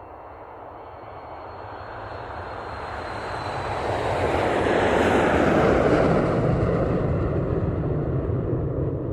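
Boeing 737 jet taking off, heard from outside: the engine noise builds over about five seconds as it passes, peaks, then eases slightly into a heavy low rumble.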